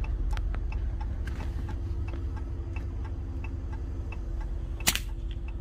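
Vehicle engine idling, heard inside the cab as a low rumble with a steady hum, under a regular light ticking about three times a second. About five seconds in comes a single short, sharp crack, a PCP air rifle firing.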